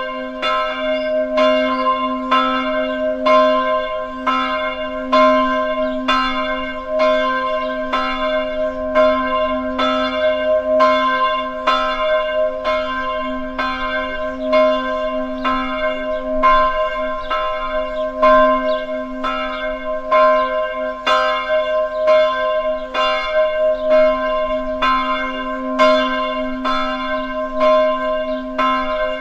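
Bells ringing in an even run of strikes, about two a second, each ringing on over a steady low hum.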